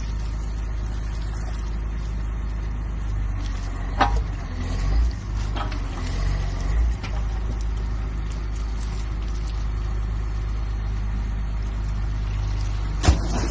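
Heavy machinery engine running steadily with a low drone, swelling a few times between about four and seven seconds in. A sharp knock comes about four seconds in and another near the end.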